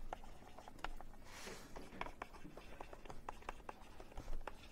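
Stylus tapping and scratching on a tablet screen while handwriting words: a string of faint, irregular ticks.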